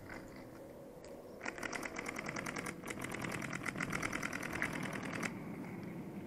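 Paintball marker firing a rapid, even stream of shots, many a second, starting about one and a half seconds in and stopping abruptly near the end.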